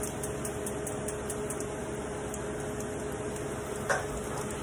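Gas stove burner igniter ticking rapidly, about four clicks a second, over a steady hum; about four seconds in, a single clink as a glass bowl is set down on the cutting board.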